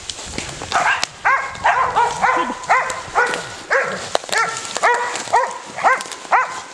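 A dog barking in a quick, steady run, about two short yelping barks a second.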